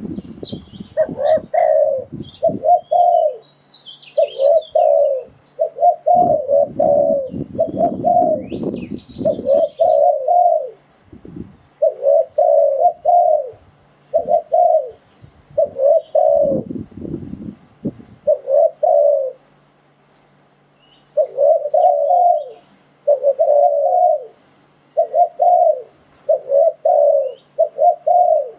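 Spotted dove cooing: short coos repeated in quick groups with brief pauses between them. A low rumble sits underneath at times, and another bird chirps faintly twice.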